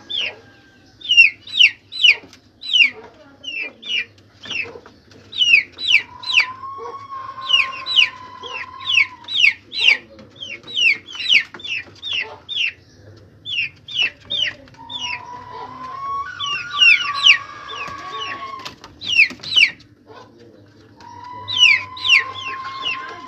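Flock of desi chickens calling: a dense run of short, high, falling chirps, with three long drawn-out calls held on one pitch for two to three seconds each.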